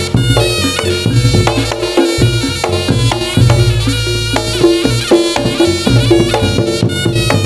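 Reog Ponorogo obyokan music played loud through a sound system. A nasal slompret shawm carries the melody over drums and gongs, with a heavy low bass throughout.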